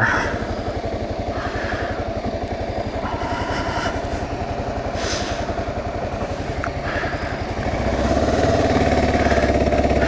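Kawasaki KLR 650's single-cylinder engine running steadily under way, heard from on the bike with its exhaust pulsing evenly. It gets louder about eight seconds in.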